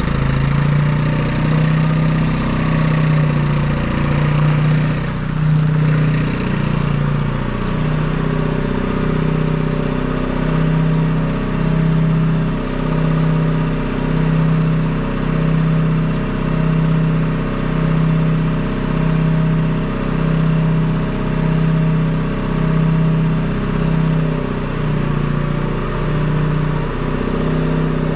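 Detroit 3-53T three-cylinder two-stroke turbo diesel running steadily, its drone swelling and fading evenly about once a second.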